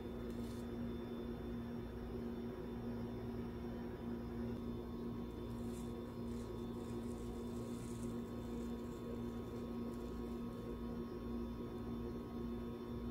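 Steady low electrical hum, unchanging throughout.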